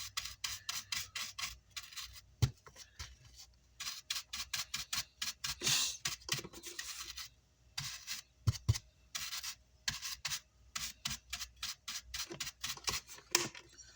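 Quick, irregular scratching and rubbing strokes of a small hand tool on an amplifier's power-supply circuit board, several strokes a second.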